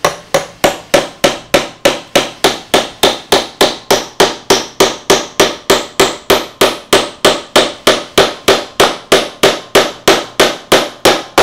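Hammer driving a finishing nail into a sofa's wooden frame through a drilled pilot hole: a long, steady run of sharp strikes, about three to four a second.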